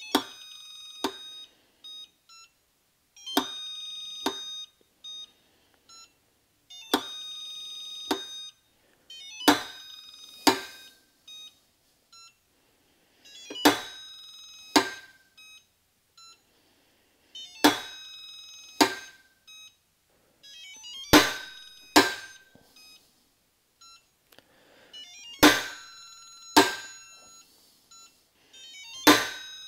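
Duralast click-type torque wrench clicking over repeatedly as it is pulled against a digital torque tester, a sharp click, often in pairs, about every four seconds, each time at a torque the tester marks as out of spec. Over the first few pulls each click is followed by a steady electronic beep about a second long.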